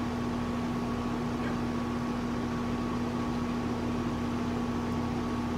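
A steady mechanical hum with a constant low tone and a fainter higher tone above it, unchanging throughout.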